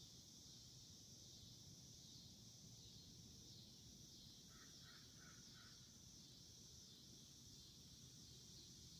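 Faint, steady, high-pitched chorus of insects, with a bird giving four short calls in quick succession about halfway through.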